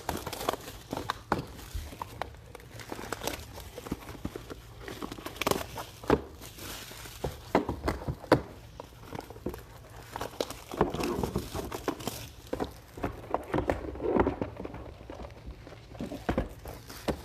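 Plastic shrink-wrap being ripped and crumpled off sealed trading card boxes: irregular crinkling and crackling with light knocks of the cardboard boxes being handled.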